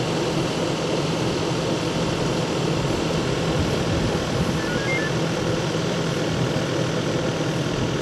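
An engine running steadily: a constant low hum under an even rush of noise, with no change in speed.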